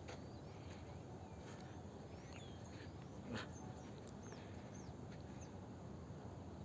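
Faint outdoor birdsong: many short, high chirps and whistles from small birds, scattered through, over a low steady background. A brief sharper click stands out about three and a half seconds in.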